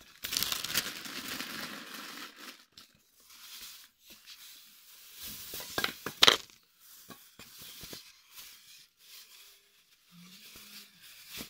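Thin clear plastic bag crinkling and rustling as it is handled, densest in the first two or three seconds, then scattered crackles with one sharp loud crackle about six seconds in.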